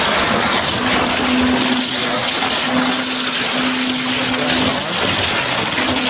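Concrete boom pump truck running under load while concrete is pumped through the hose into the ICF wall forms: a steady, loud mechanical noise with a low hum that cuts in and out several times.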